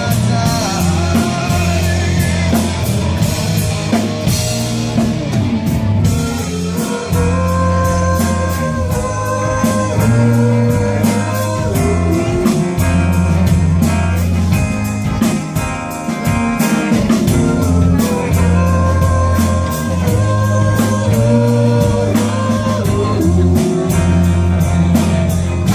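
Live rock band playing amplified: distorted electric guitars and bass guitar over a steady drum-kit beat.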